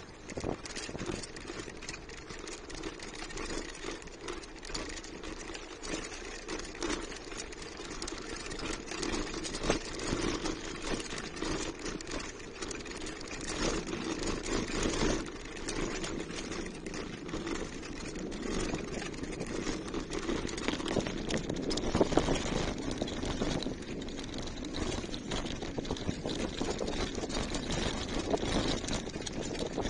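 Bicycle rolling over cobblestones: a steady rumble with a dense, continuous rattle and clatter of the bike and its handlebar phone mount, picked up through the mounted phone.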